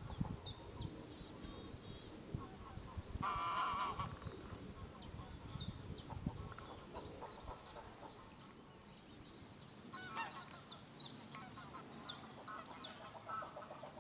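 Greylag geese calling: one loud honk about three seconds in, then softer goose calls around ten seconds.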